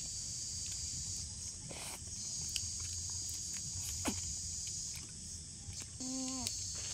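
A steady, high-pitched chorus of insects buzzing, breaking off briefly twice, with a few faint ticks and a short vocal sound near the end.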